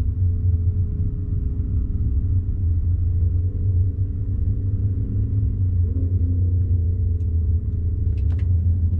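GMC Sierra's 2.7-litre turbocharged four-cylinder running at a steady idle, a low, even rumble. A few light clicks near the end.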